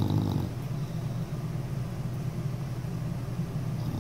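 Sleeping bulldog snoring: a low, steady, rattling snore.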